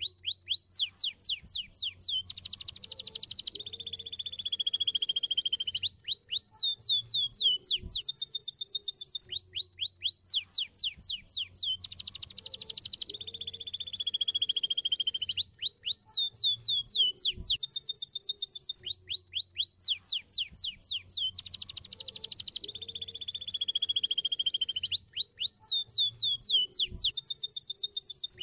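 Domestic canary singing. Fast trills of steep downward-sweeping notes alternate with a rolled trill that falls slowly in pitch. The same sequence repeats about every nine and a half seconds, over a faint low hum.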